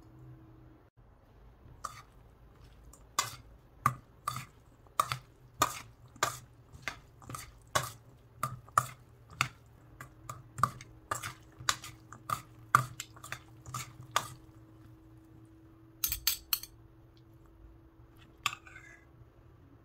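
Two metal spoons clinking against a stainless steel bowl as a chopped salad is tossed, about two sharp clinks a second, then a quick cluster of clinks near the end.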